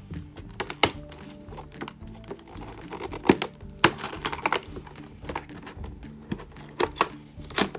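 Background music with several sharp clicks and taps from a plastic-wrapped cardboard doll box being handled, the loudest about a second in, twice around the middle and twice near the end.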